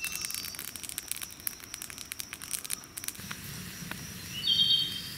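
Outdoor ambience: rapid, scattered crackling clicks over a steady high tone, with a bird chirping briefly near the end.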